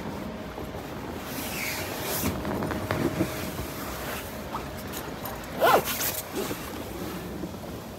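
Handling noise of a double bass in a padded soft case being carried and loaded into a car: fabric rustling and the case rubbing and scraping, with one loud, short squeaky scrape about two-thirds of the way through. A steady faint hum runs underneath.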